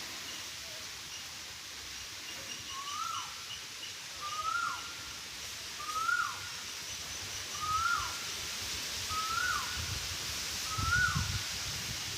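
A bird repeating the same short call six times, about every second and a half, each call rising and then dropping sharply. Fainter high chirps and a steady outdoor hiss run underneath, with a few low rumbles near the end.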